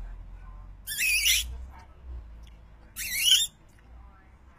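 A toddler's high-pitched squeals, twice, each under a second long and gliding up and down in pitch.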